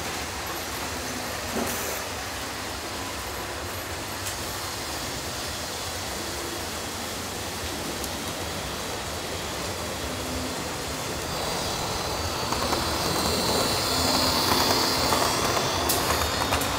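Model trains running on the layout: a steady rumble of small wheels on rails and motors, growing louder about three-quarters of the way through as a rake of passenger coaches runs close by.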